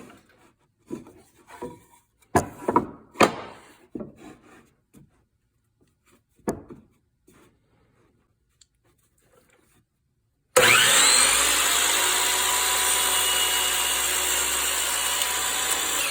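Several short knocks and clicks as the DeWalt sliding compound miter saw is handled. About two-thirds of the way in, its motor starts suddenly and runs steadily with a whine while the freshly sharpened blade is brought down through wood. It begins to fade at the very end.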